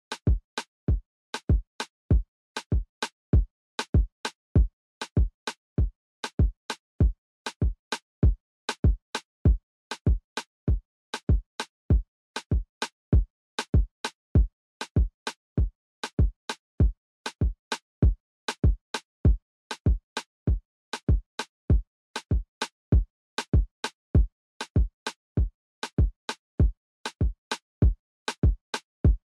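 Backing music: a drum-machine beat of short bass-drum hits, about two a second, with silence between the hits.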